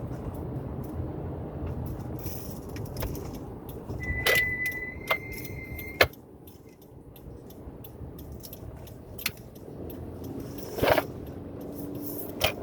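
Car brakes fitted with Hawk Performance Street Race pads squealing with a steady high-pitched tone for about two seconds, starting about four seconds in and ending with a sharp click, after which it goes quieter. Steady road noise and the drone of the CVT-equipped engine run underneath, with a few more clicks later on.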